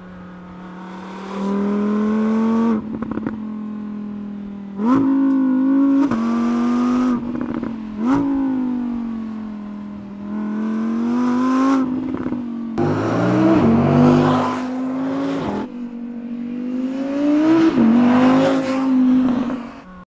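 Audi R8's 5.2-litre V10 at full throttle, revving up in several runs with quick upshifts, the pitch dropping at each shift and between runs.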